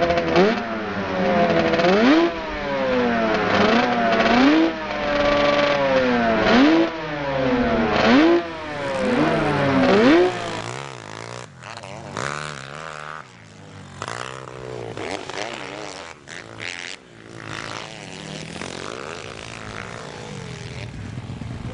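Small single-cylinder four-stroke pit bike engines revving hard, the pitch climbing and dropping again roughly every second and a half. After about ten seconds the sound turns quieter and uneven as the bikes run on the dirt track.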